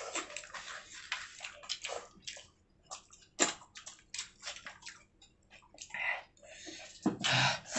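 Wet, irregular squelching and smacking of someone eating rice and fish gravy by hand, with chewing. A short, louder sound from a person's voice comes near the end.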